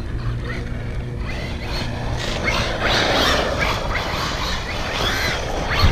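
Brushless electric motor of a Losi Baja Rey 1/10-scale 4WD RC truck whining in repeated rising-and-falling sweeps as it speeds up and slows, with its tyres scattering gravel, over a low rumble throughout. The whines begin about two seconds in.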